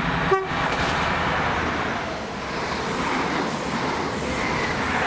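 Class 43 HST power cars of the New Measurement Train passing, a steady loud roar of diesel engines and wheels on rail. Near the start there is one very short sharp toot.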